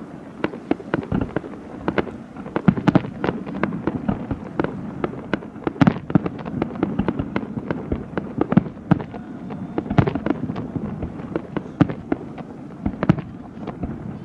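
Fireworks display: a dense, irregular run of sharp bangs and crackles, several a second, over a continuous low rumble.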